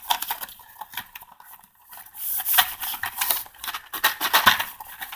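Cardboard ammunition box being worked open by hand: a busy run of scraping, rustling and quick light clicks and rattles.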